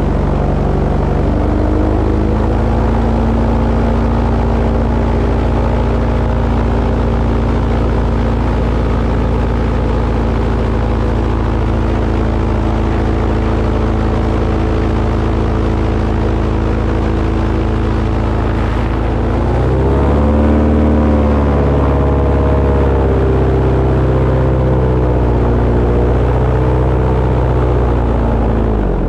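Engine running steadily under load. About two-thirds of the way through, its pitch dips and then climbs again as the revs change.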